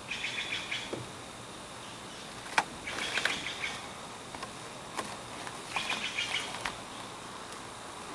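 A bird chirping in three short bouts of quick, high notes, a few seconds apart. A single sharp click comes between the first two bouts.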